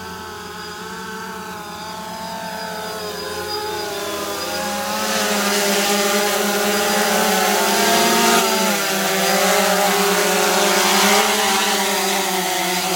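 DJI Phantom Vision quadcopter's propellers buzzing in flight, several close pitches wavering against each other. The sound gets louder and hissier about five seconds in.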